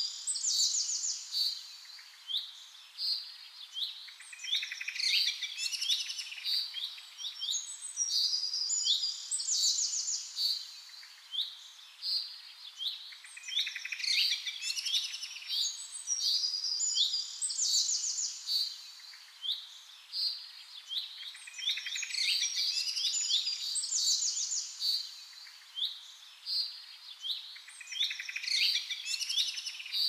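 Birds chirping: rapid high-pitched chirps and short downward-sweeping calls, coming in bursts every few seconds.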